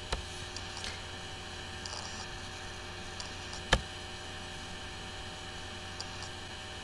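Steady low electrical mains hum, with one sharp click of a computer mouse a little over halfway in and a couple of faint ticks.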